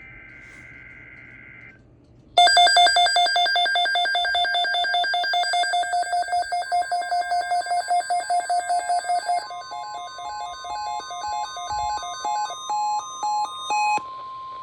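Emergency alert for a tornado watch on NOAA Weather Radio. It opens with a short burst of screechy data tones. Then a weather-alert receiver's electronic alarm beeps loudly and rapidly, shifting about halfway through into a stepping pattern of paired beeps. A steady warning tone comes in under the beeping and carries on alone for a moment after the beeping stops.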